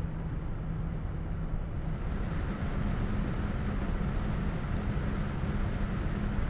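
Four 120 mm radiator fans of an Arctic Liquid Freezer 240 all-in-one CPU water cooler, mounted in push-pull, running under CPU load with a steady rush of air and a low hum. About two seconds in they speed up for the overclocked load: the hum rises in pitch and the rush gets louder.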